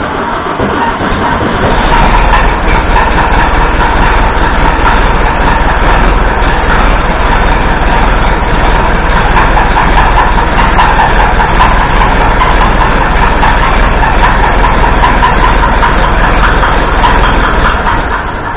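Massey Ferguson 165 tractor engine running, growing louder about two seconds in, with a knock that sounds like a connecting rod knocking.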